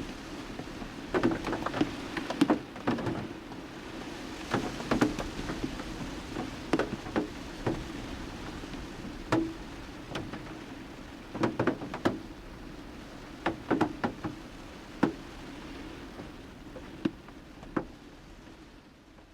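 2022 Chrysler Voyager minivan: a steady hum under irregular sharp clicks and knocks, several coming in quick clusters, fading out near the end.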